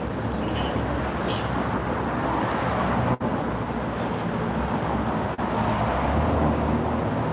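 Steady road traffic noise from cars passing on a city street, with the sound dropping out for an instant twice.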